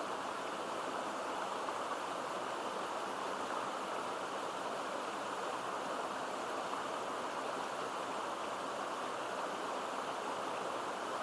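Mountain stream babbling (seseragi), a steady, even rush of running water with no breaks or changes.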